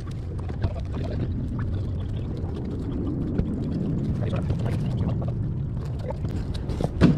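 Bagged comic books being flipped through in a cardboard long box, the plastic sleeves giving small ticks and rustles over a steady low rumble, with one louder knock near the end.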